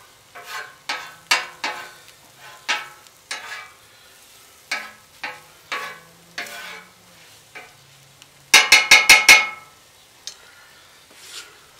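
Metal spatula scraping and chopping scrambled eggs on the steel plate of a Royal Gourmet 36-inch flat-top griddle, one short ringing stroke at a time. About nine seconds in come five rapid metal clanks, the loudest sound here.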